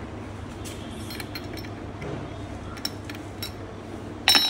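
Steel gearbox parts of a Yamaha R15 M clinking together as the shift forks and gear shafts are fitted into the open crankcase: a few light clicks, then a louder ringing metal clink near the end.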